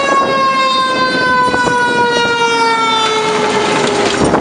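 Fire truck siren sounding one long steady tone whose pitch falls slowly throughout. Near the end a fire pumper passes close by, adding a rush of engine and road noise.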